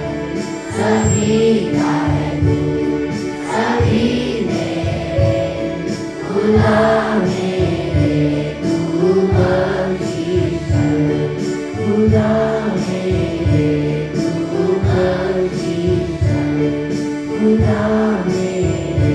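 A group of voices singing a devotional song in chorus over instrumental accompaniment with a steady, regular beat.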